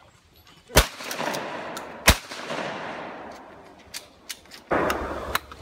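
Two shotgun shots about a second and a quarter apart, each followed by a long rolling echo, fired at clay targets. A few light clicks and a rustle come near the end.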